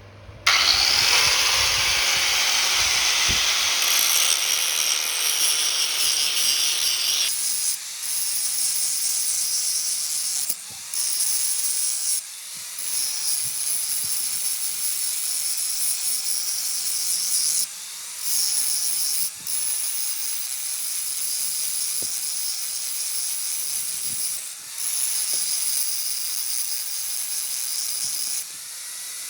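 A power grinder working metal. The grinding starts about half a second in and is heavier for the first seven seconds. After that it becomes a lighter high hiss, broken by short gaps every few seconds, and the motor's pitch rises briefly after each gap.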